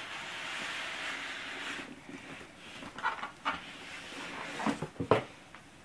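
Cardboard and plastic packaging being handled: about two seconds of rustling, then a few light knocks and taps.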